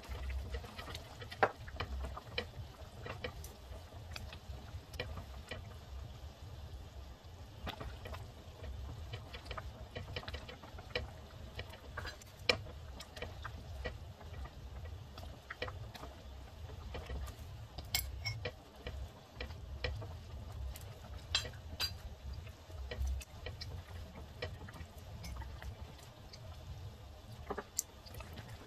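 Silicone whisk stirring a thick cream sauce in a metal pot: soft, irregular light clicks and scrapes over a low steady rumble.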